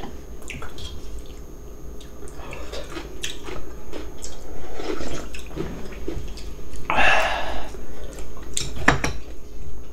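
Close-up eating sounds: cold radish-kimchi noodle broth being slurped and sipped from the bowl, with a louder slurp about seven seconds in and scattered light clicks of utensils against the bowl.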